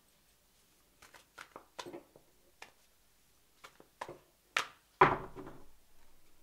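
Tarot cards being handled and laid down on a table: a scatter of light clicks and taps, then one louder thump about five seconds in.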